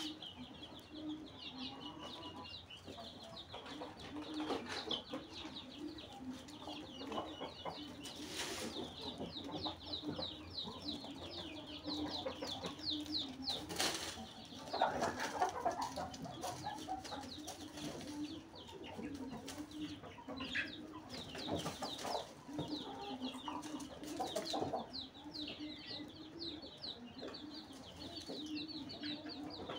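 Chickens clucking, with rapid high chirping throughout and a couple of sharp knocks.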